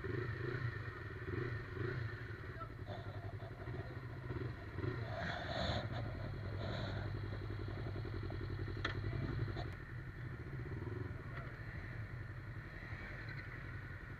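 Yamaha MT-25's parallel-twin engine idling steadily, with a few short clicks and knocks in the middle.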